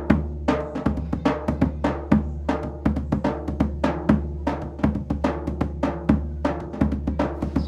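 Zabumba drumming with other percussion, a fast, steady rhythm of ringing drum strokes.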